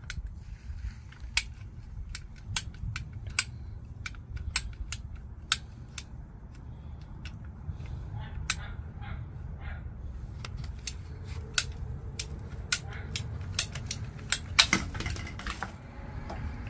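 Irregular sharp clicks and clacks of hand tools and plastic pipe and fittings being handled during a water pipe repair, with a quick run of clicks near the end, over a steady low rumble.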